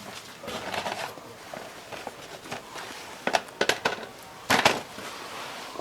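Tools and metal engine parts being handled on a workbench: scattered clinks and knocks, a quick run of sharp clicks past three seconds, and the loudest clatter about four and a half seconds in.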